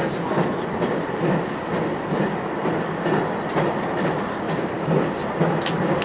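Cabin running noise of a JR Shikoku 2700 series diesel limited-express train under way: a steady rumble of wheels on rail and the underfloor engine, with a few faint rail clicks.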